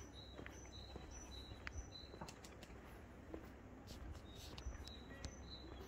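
A small bird calling: quick runs of short, high two-note chirps, about three a second, pausing about two seconds in and starting again near the end.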